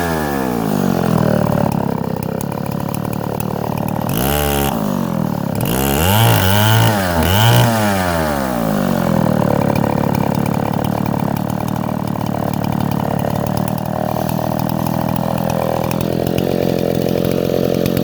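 Chinese clone of a Stihl 070 two-stroke chainsaw, running rich, cutting mesquite in an Alaskan chainsaw mill. The engine speed drops just after the start, rises and falls a few times in the middle, then holds steady under load.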